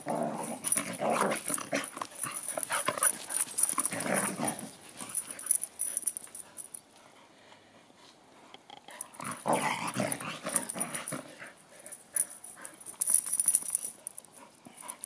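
Dogs growling in rough play, in several bursts, with a lull of a few seconds around the middle before more growling.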